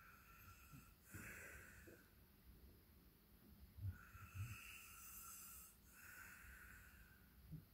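Faint snoring and slow breathing of a sleeper. There are long, airy breaths and a couple of short, low snorts about four seconds in.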